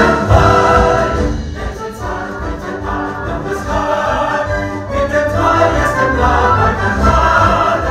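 A male vocal ensemble singing an operetta number together, accompanied by a theatre orchestra.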